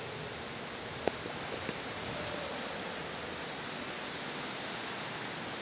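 Steady rushing of floodwater, with one sharp click about a second in.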